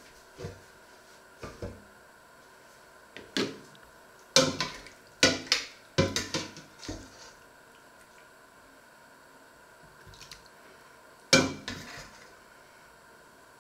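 A metal ladle clanking and scraping against a stainless steel stockpot while vegetable stew is dished out onto a plate. There is a series of separate knocks, with a cluster of the loudest about four to six seconds in and one more sharp clank near the end.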